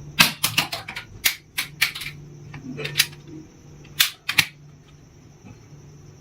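Plastic toy guns clicking and snapping: about a dozen sharp, irregular clicks in the first four and a half seconds, the last two about four seconds in.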